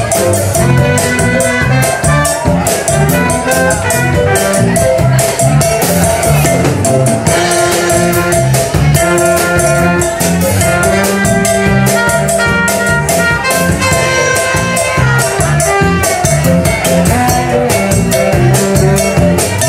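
Live band playing an upbeat Latin-jazz groove: drum kit and hand percussion keeping a steady beat under saxophone, keyboard and electric guitar.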